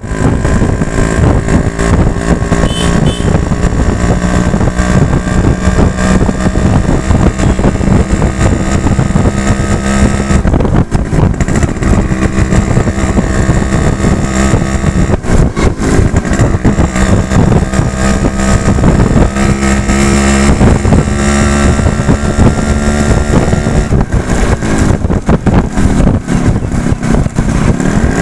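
Yamaha RX 100 motorcycle's 98 cc two-stroke single-cylinder engine running loud and close, its pitch dropping and climbing again several times as the throttle is blipped.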